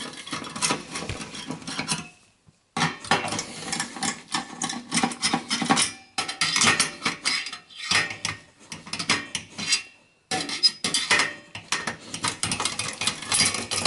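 Screwdriver turning out the processor heat sink's retaining screws, metal on metal: quick clicking and rattling in several stretches with short breaks between them.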